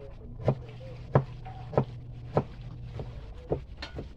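Cleaver chopping red onion on a wooden cutting board: a steady run of sharp knocks, a little under two chops a second.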